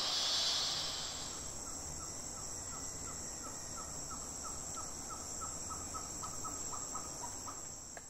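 Rainforest insect chorus: one steady high trill, with a louder high hiss of insects for the first second or so. Over it comes a run of short, evenly spaced chirps, about three a second, from another calling animal.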